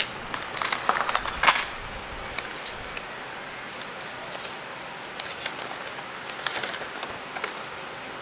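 Handling a clear plastic storage box and folded paper prescriptions: a cluster of sharp clicks and paper rustles in the first second and a half, then lighter crinkles as the papers are unfolded, a few more about six to seven and a half seconds in.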